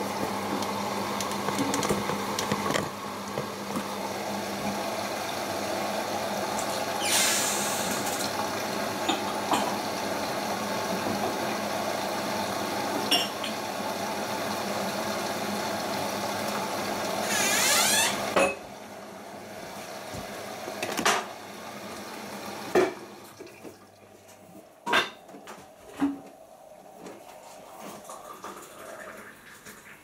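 Siemens iQ WIQ1430 washing machine at the start of its cycle, taking in water with a steady rushing and hum while the drum turns the load. The inflow cuts off about 18 seconds in, leaving a few soft knocks from the drum and clothes.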